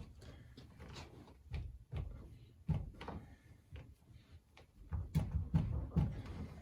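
Irregular knocks and clunks of glue-pull dent-repair work on a car's steel body panel, with a run of heavier thumps about five seconds in.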